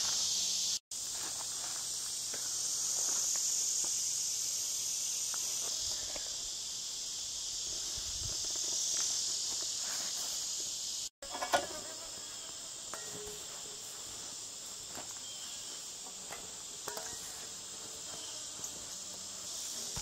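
Steady, high-pitched chorus of insects in the background, with a few faint knocks. The sound cuts out briefly twice, about a second in and about halfway through.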